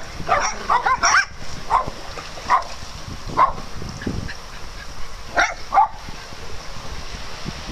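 Small dogs barking: a quick run of sharp barks in the first second or so, then single barks spaced out, and a close pair about five and a half seconds in.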